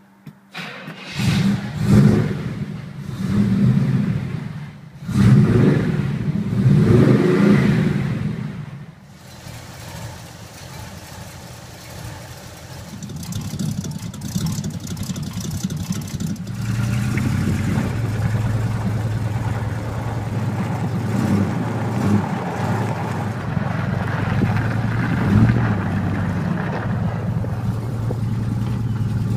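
A 350 Chevrolet small-block V8 in a Toyota 40 Series ute starts about a second in and is revved in several blips before it drops back. From past halfway the engine runs on steadily with an even, louder note.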